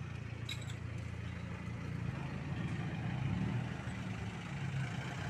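Steady low background rumble, with a brief faint clink about half a second in.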